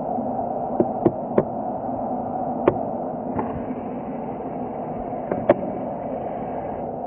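Boeing 737-800's CFM56-7B jet engines running at taxi idle, a steady hum, with several sharp clicks scattered through it.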